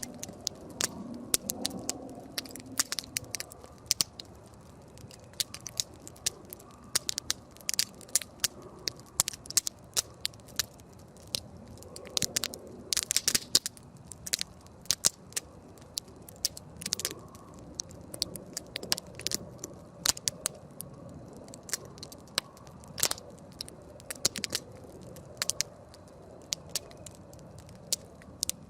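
Wood campfire crackling: irregular sharp pops and snaps over a low steady hiss of burning, busiest about halfway through.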